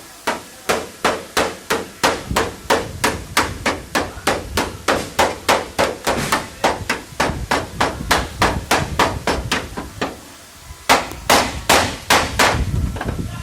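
Hammer beating on a car body panel in a steady rapid rhythm, about three blows a second. After a short pause near the end, a handful of heavier blows follows.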